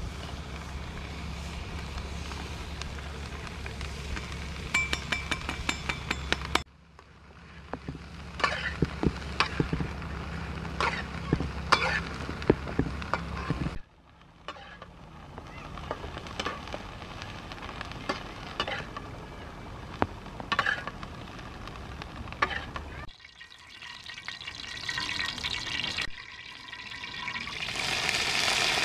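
Crickets frying in a wok over a wood fire: a metal spatula scrapes and clinks against the pan as they are stirred, with sharp clicks in the middle, and the hiss of sizzling oil grows loud near the end as more crickets go into it.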